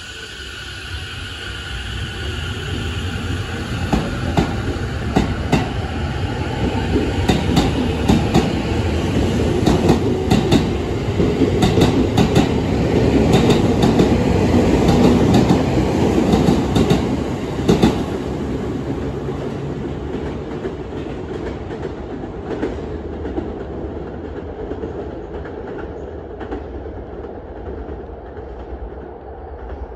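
Sotetsu 10000 series electric train pulling out past the platform. Its Mitsubishi IGBT VVVF inverter whines as it gathers speed, then the wheels clack over rail joints car after car, loudest about halfway through. The sound then fades steadily as the train draws away.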